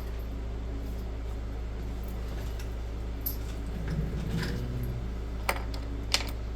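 Small metal screwdriver bits clicking and clinking as they are sorted through by hand, with a few sharp clicks, the two loudest near the end, over a steady low hum.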